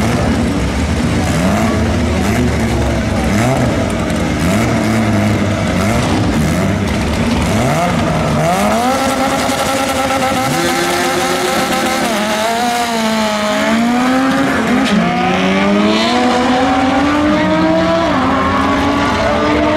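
Drag-race cars, a Lamborghini Huracán and a sleeper sedan, revving their engines over and over on the start line. Then they launch, and the engines pull hard, climbing in pitch, dipping at each gear change and climbing again.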